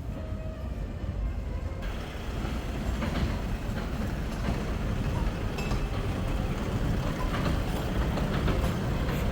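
City street noise: a steady low rumble that grows louder and fuller about two seconds in, with scattered short clicks.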